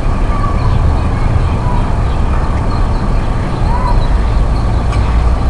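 Loud, steady low rumble of outdoor background noise, with a few faint short tones above it.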